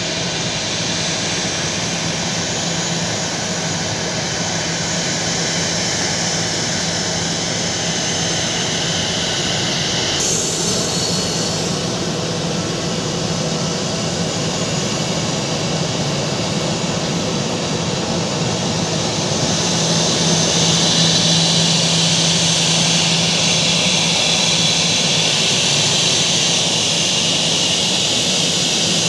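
Airbus A320's jet engines running at taxi power: a steady hiss and whine with a low hum beneath it. It grows louder about two-thirds of the way through as the plane taxis closer.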